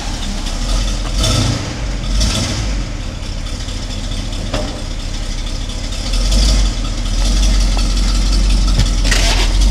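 1969 Cadillac de Ville's 472 cubic-inch V8 running just after being started, with a deep steady rumble that swells briefly a few times and grows louder about six seconds in.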